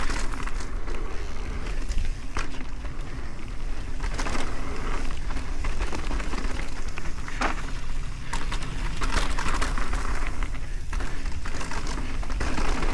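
Mountain bike riding fast down a dirt trail: steady tyre and rushing noise with scattered knocks and rattles as the bike runs over rough ground.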